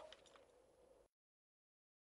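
Near silence: a faint tail of the preceding voice fades out in the first moments, then dead digital silence.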